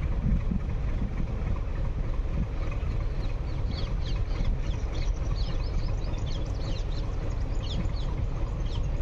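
Metre-gauge diesel locomotive running at a distance, a steady low rumble as it approaches slowly. Birds call over it in short, quick falling chirps from a few seconds in.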